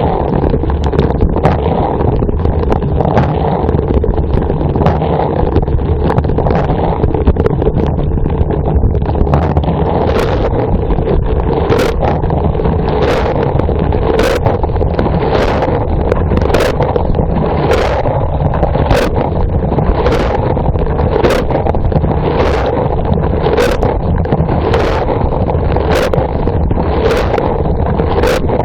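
Dishwasher wash cycle heard from inside the tub: the pump runs steadily and water sprays. From about a third of the way in, a sharp splash of water hits about once a second as the rotating spray arm's jet sweeps past.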